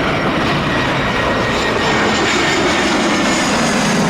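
Airplane engine sound effect: a loud, steady rushing drone with a faint high whine.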